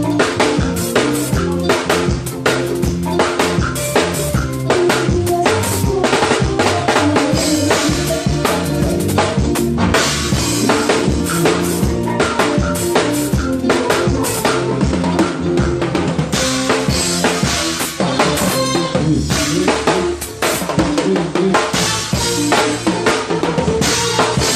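Live band playing an instrumental passage at a soundcheck: a drum kit with kick, snare and rimshots keeps a fast, busy rhythm over bass and sustained pitched instruments.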